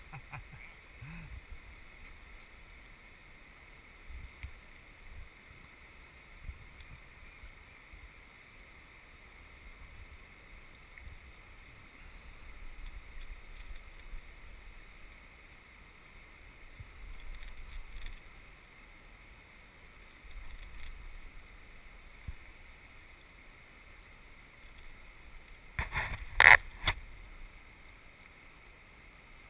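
River water lapping and gurgling against the hull of a small drifting boat, with wind rumble on the microphone and scattered light knocks. Near the end comes a short cluster of loud sharp knocks or clicks.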